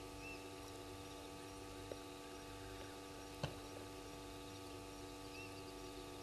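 Faint outdoor waterhole ambience at night: a steady hum with faint high chirping. Two short chirps, one near the start and one near the end, and a single sharp click about halfway through.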